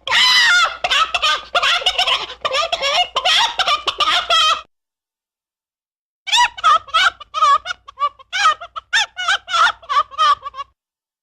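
Chicken clucking and squawking in rapid, wavering calls, in two runs of about four seconds each with a sudden silent gap between them.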